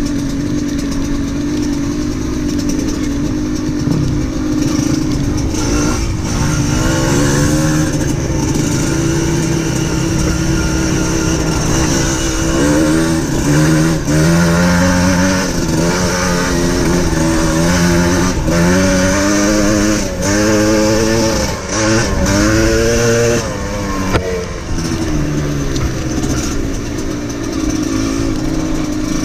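Off-road vehicle engine running hard over a rutted dirt lane. It is steady for the first few seconds, then revs up and down repeatedly through the middle stretch before settling back to a steadier drone near the end.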